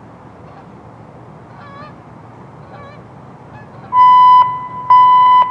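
Cooper WAVES outdoor mass-notification loudspeaker sounding a steady electronic alert tone: after a few seconds of quiet background, two loud beeps of about half a second each, a second apart, near the end. It is the attention tone that leads into the all-clear voice message.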